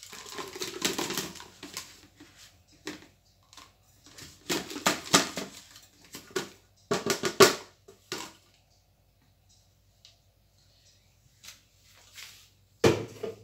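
A plastic blender jar being scraped out with a silicone spatula and knocked against a plastic bowl to empty ground peanuts: irregular scraping and tapping in bursts, with a hard knock near the end.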